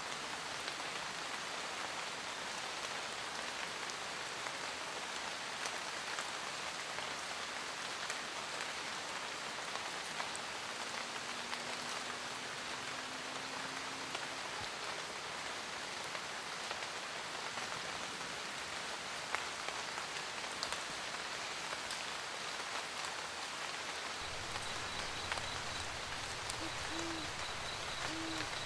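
Steady rain pattering on a surface. An owl hoots: one long low note midway, then three short hoots near the end. A low rumble sets in under the rain a few seconds before the hoots.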